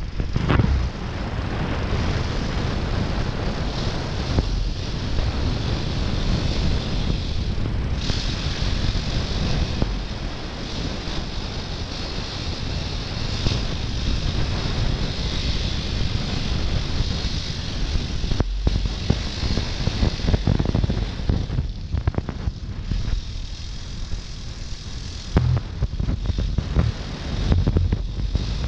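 Dirt bike engine running under throttle while riding a muddy dirt track, with wind on the microphone. The sound dips briefly a few times as the throttle is rolled off.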